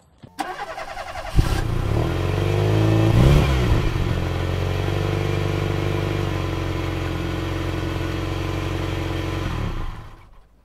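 Motorcycle engine sound effect: a knock as it starts, a quick rev about three seconds in, then steady running that fades out near the end.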